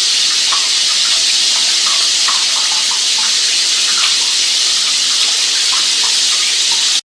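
Running water: a steady rush with small gurgles and splashes through it, cutting off suddenly about seven seconds in.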